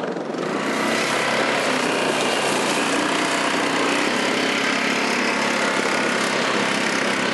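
ATV (four-wheeler) engine running at a steady pace.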